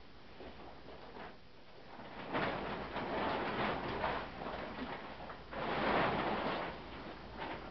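Rustling and rattling of a quick-assembly tent being unlocked and taken down, in two noisy stretches starting about two and five and a half seconds in, the second one louder.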